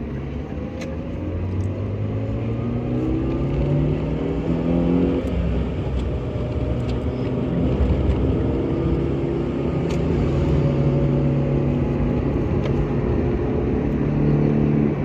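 Car engine and road rumble heard from inside the cabin while driving, the engine note climbing with acceleration and dropping back a few times.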